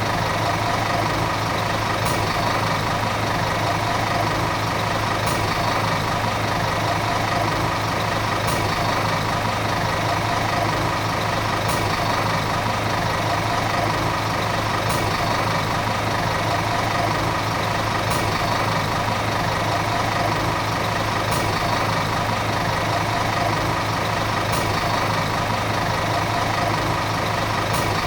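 Volvo city bus diesel engine running steadily at an even, unchanging pitch, with a faint high tick about every three seconds.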